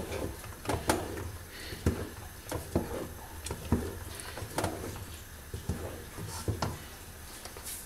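Wooden spoon stirring a thick sesame-and-hazelnut paste in an aluminium pot, with irregular knocks and scrapes against the pot about once or twice a second.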